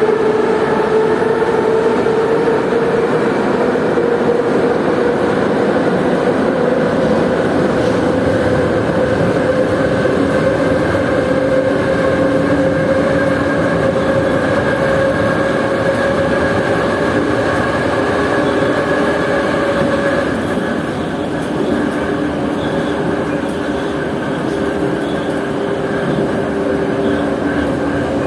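Metro train running: a steady rumble with a motor whine that rises slowly in pitch as it gathers speed. About twenty seconds in, the whine changes and the sound drops a little.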